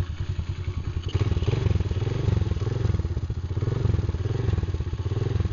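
Old Chinese mini dirt bike's small single-cylinder engine running, first at a steady idle, then given light throttle from about a second in so that it rises and falls in pitch a few times before settling back.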